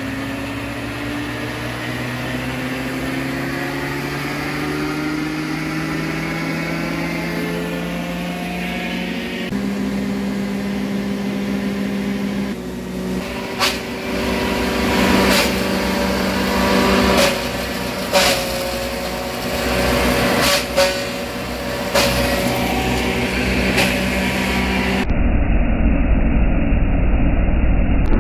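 Kubota MU5502 tractor's 2434 cc four-cylinder diesel engine running steadily at about 1900 rpm, driving a coconut-frond shredder-pulverizer off its 540 rpm PTO. The pitch rises steadily over the first ten seconds. From about halfway through, loud sharp hits come about once a second as fronds are fed into the shredder, and the last few seconds sound dull and muffled. The owner says green fronds barely load the 50 hp engine.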